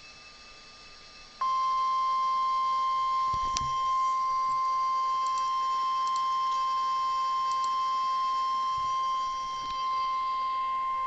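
NOAA Weather Radio 1050 Hz warning alarm tone: after faint radio hiss, a single steady beep starts about a second and a half in and holds unbroken. It is the alert tone that announces an emergency message, here a severe thunderstorm watch.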